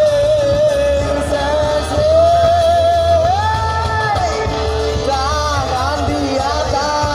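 Loud pop music with a sung vocal and heavy bass, played through a truck-mounted 'sound horeg' stack of loudspeaker cabinets.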